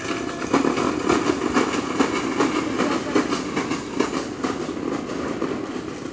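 Small wheels of a child's ride-on vehicle rolling over concrete paving: a continuous rumbling rattle with clacks about twice a second.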